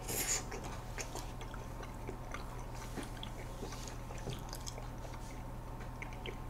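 Close-miked sounds of people eating soft ice cream cake: faint chewing and mouth sounds with scattered light clicks of metal forks, and a brief louder noise at the very start.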